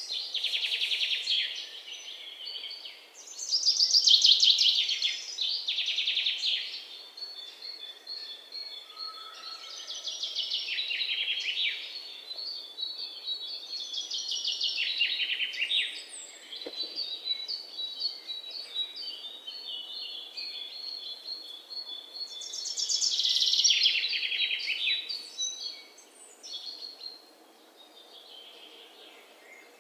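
Songbirds singing: repeated phrases of high, fast trills and chirps, each a second or two long, with a string of short chirps in the middle. The song dies down near the end.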